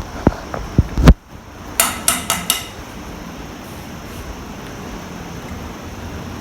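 Metal tools and parts knocking and clinking during motorcycle servicing: three sharp knocks in the first second, then a quick run of about five ringing metallic clinks, followed by a steady hiss.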